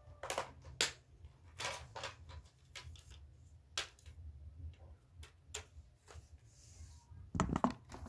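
Scattered sharp plastic clicks and snaps as a flathead screwdriver pries at the clips holding the lid of a Huawei EchoLife HG8245H router's plastic casing, with a denser cluster of knocks near the end as the clips give way.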